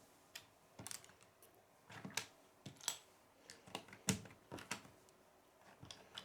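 Plastic Lego bricks clicking and tapping as they are handled and pressed together, a string of sharp, irregular clicks.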